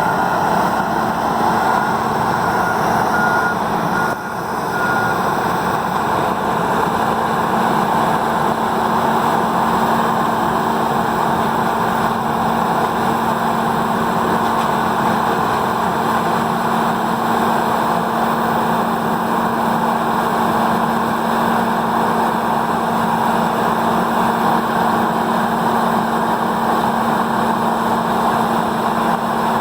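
1125 hp Peterson 5710D horizontal grinder running hard, a loud, steady mechanical din with a constant hum under it. A reversing alarm beeps evenly for the first five seconds or so.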